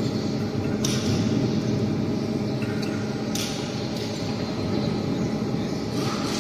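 Hydraulic wheelset press running during wheel mounting: a steady machine hum from its hydraulic drive, with brief hisses a few times.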